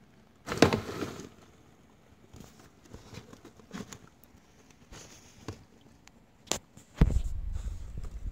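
Coconut-husk bedding rustling and crackling as a ball python strikes and coils around a live mouse. There is a loud crackly scuffle about half a second in, then scattered light crackles, and a low rumble near the end.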